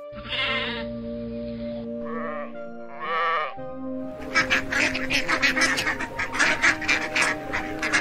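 Sheep bleating three times, the first long and the next two shorter, each with a quavering tremble, over background music. From about four seconds in, mallard ducks quacking in a quick, rapid run of short calls.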